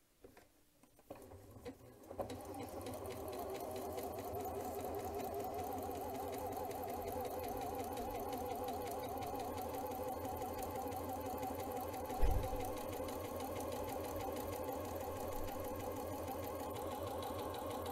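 Janome C30 sewing machine starting up after a few small clicks, then running steadily as it sews a satin scallop stitch. There is one brief low thump about twelve seconds in.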